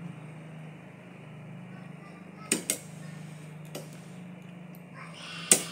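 Pliers working the metal clip of an old rear wiper blade: a few sharp metallic clicks, then one loud snap near the end as the clip gives. A steady low hum runs underneath.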